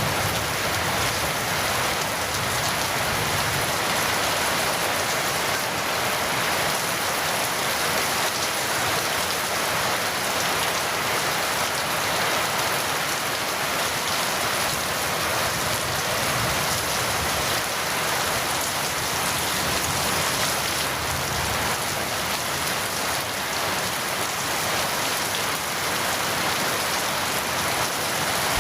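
Steady rain falling, an even hiss that holds the same level without change.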